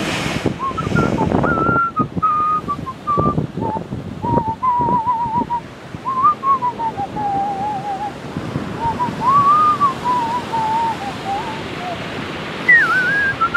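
A person whistling a wavering tune, with surf and gusts of wind on the microphone underneath.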